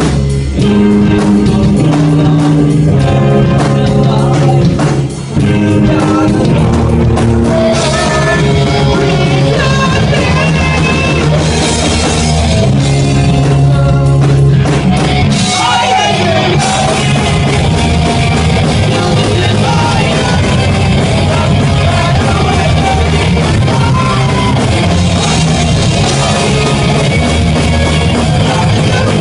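Live rock band playing loud, with electric guitars and a singer's voice over the band. The music drops out for a moment about five seconds in, then carries on.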